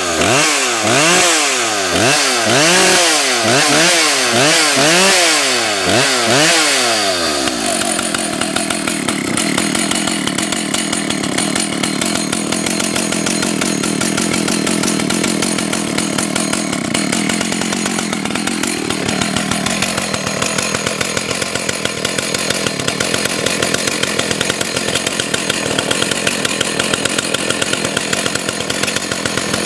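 Vintage Husqvarna 298XP two-stroke chainsaw, revved up and down about once a second for the first seven seconds or so, then dropping back to a steady idle for the rest.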